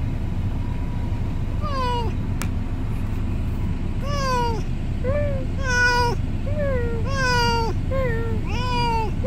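A cat meowing repeatedly, about eight meows that each fall in pitch, the first alone and the rest coming quickly one after another from about four seconds in, over a steady low rumble.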